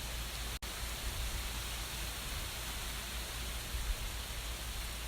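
Steady, even background hiss with a low hum underneath, cut by a very brief drop-out about half a second in.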